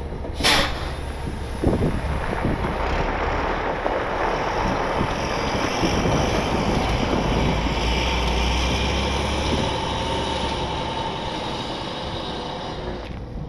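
Rollback tow truck's diesel engine pulling away loaded with a box truck on its deck, a steady low rumble that fades as the truck drives off. There is a short sharp sound about half a second in.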